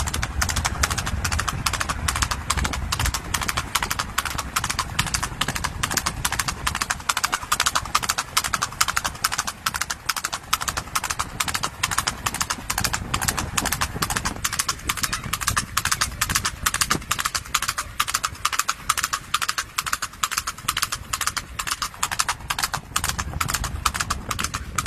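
Horse's hooves clip-clopping in a quick, steady run of hoof beats as the horse is ridden along.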